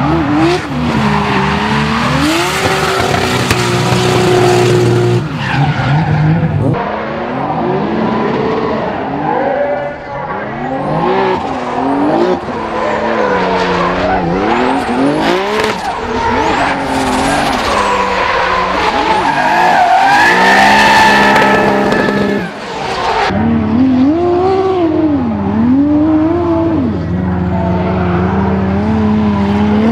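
Drift cars sliding sideways with their engines revving hard, the pitch swinging up and down again and again as the drivers work the throttle, over the skidding and squealing of spinning rear tyres.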